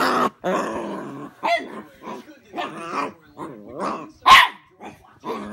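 Dogs play-growling and barking at close range: a run of short growls and grumbly barks about every half second, with one sharp, loud bark about four seconds in.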